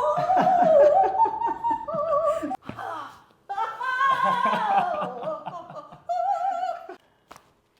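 A woman singing in an operatic style: three phrases of held, high notes with vibrato, with short breaks between them, ending about seven seconds in.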